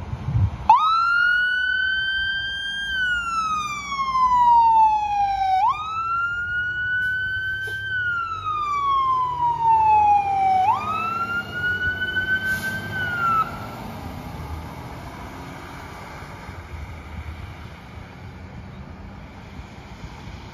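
Siren of a 2019 KME Panther fire pumper wailing: three rise-and-fall sweeps, each climbing quickly and then gliding down over about three seconds, cutting off abruptly a little over halfway through. The truck's diesel engine runs underneath and fades as it moves away.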